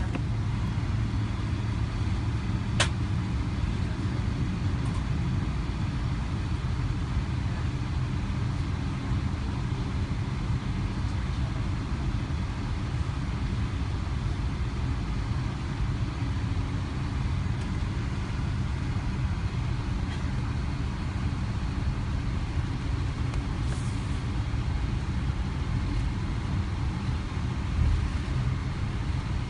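Steady low rumble of a Boeing 777's engines and airflow heard inside the passenger cabin, with a single sharp click about three seconds in.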